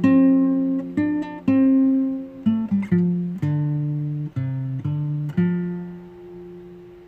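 Background music: acoustic guitar picking a slow melody, each note ringing out, the last one fading away near the end.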